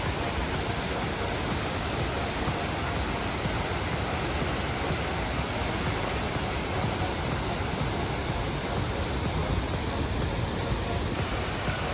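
Steady rushing of a fast, high-running mountain creek, a continuous even wash of water noise.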